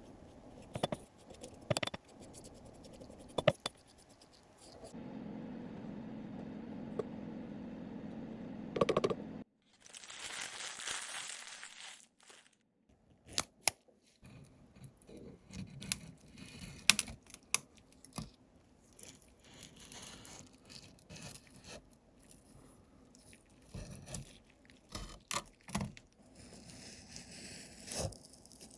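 Hand work on small parts: a string of separate clicks, scrapes and crinkling. A steady low hum runs for a few seconds near the start and a brief hiss follows about ten seconds in.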